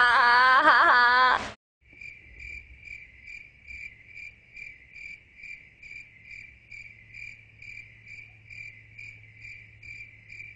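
A short stretch of music cuts off abruptly about a second and a half in. Then a cricket chirps steadily, about two to three short high chirps a second, over a faint low hum.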